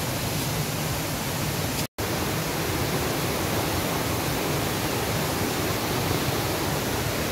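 Steady roar of a waterfall in full monsoon flow. The sound drops out completely for an instant about two seconds in.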